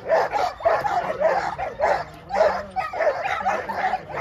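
A pack of leashed Belgian Malinois-type working dogs barking over one another, about three barks a second, as they lunge and strain against their handlers' leads.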